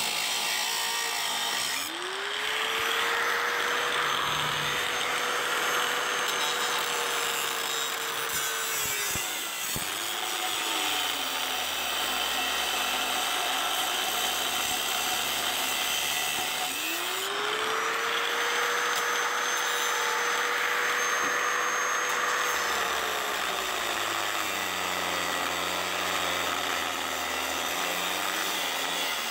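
Harbor Freight angle grinder with a cutoff wheel cutting the stock flange off a cast-iron exhaust manifold. The motor spins up about two seconds in and runs at a steady whine, drops away shortly before ten seconds, spins back up after about seventeen seconds, and sags and wavers in pitch near the end, over a constant grinding hiss.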